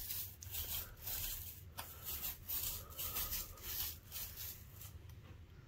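Small paint roller rolling oil-based polyurethane onto a wooden window casing: a series of soft rubbing strokes.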